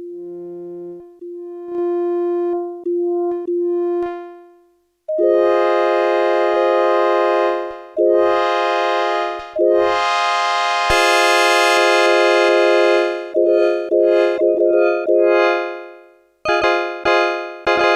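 Yamaha PSS-570 portable keyboard playing its preset FM voices one after another. It starts with a few soft single notes. After a short gap, a bright, rich sustained voice holds long notes and chords, then plays short quick notes. Near the end a different voice starts with short, fast-fading notes.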